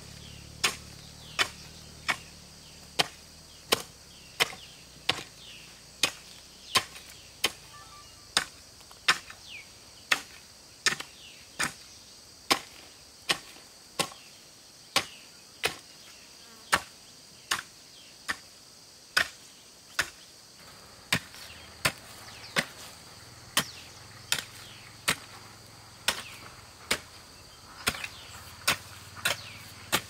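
Steady, evenly paced chopping strikes of a hand tool, about four every three seconds, over a steady high drone of insects.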